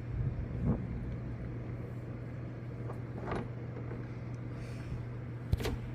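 Steady rush of heavy rain and wind heard from indoors, under a constant low hum, with a few faint knocks, the sharpest near the end.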